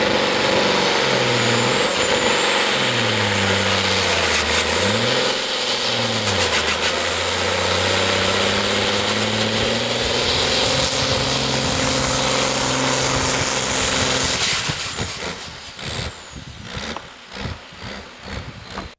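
Diesel pulling tractor at full load dragging a weight sled, its engine pitch dipping and climbing several times as it pulls, with a high whine running above it. About fourteen seconds in the engine comes off and the sound falls away to a few quieter scattered noises.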